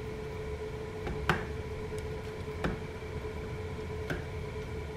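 Metal fork breaking up and stirring soft cooked ramen noodles in broth in a plastic bowl, with four light clicks of the fork against the bowl, the sharpest about a second in, over a steady hum.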